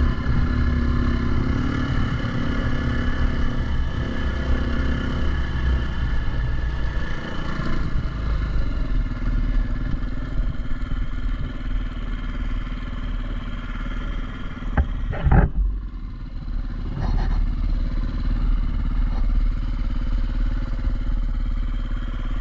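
Dirt bike's four-stroke single-cylinder engine running steadily while riding, with one loud knock or clatter about 15 seconds in.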